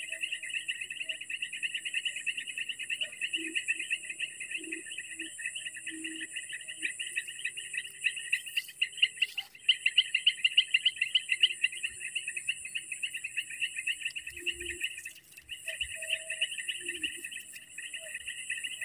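Steady chorus of insects trilling, a fast pulsing buzz in two high pitches, with a few faint short low calls scattered through it.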